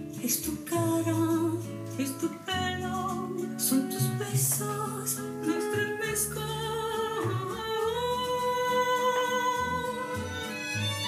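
Background music: a woman singing a melody with instrumental accompaniment, including a long, wavering held note in the second half.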